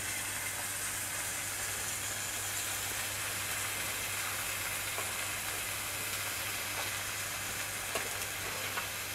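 Slices of raw meat sizzling on the hot domed grill of a tabletop barbecue pan: a steady hiss, with a few faint clicks of metal tongs, one about halfway and two near the end.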